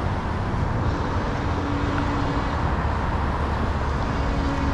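Steady low rumble of a motor vehicle running, with a faint held hum coming and going over it.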